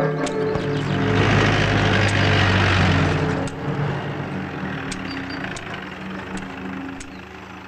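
A motor vehicle drives past: its engine and tyre noise swell to a loud rush about a second in, then fade away slowly, over soft background music.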